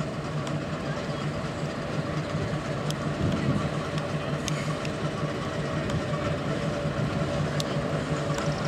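Diesel switcher locomotive engine running with a steady low hum as it pulls a passenger train slowly along the track, growing a little louder about three seconds in.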